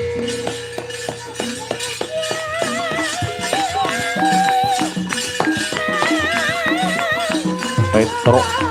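Javanese gamelan music accompanying a wayang kulit shadow-puppet play: a wavering melody with heavy vibrato over a long-held steady tone, punctuated throughout by sharp clicking, rattling percussion strokes.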